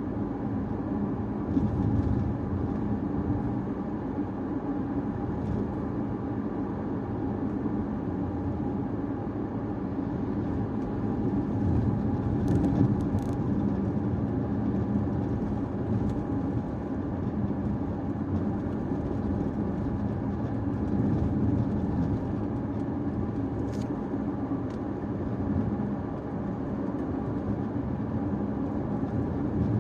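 Caoa Chery Tiggo 5x driving through town streets: steady engine and tyre-on-road noise, with a few faint clicks about halfway through.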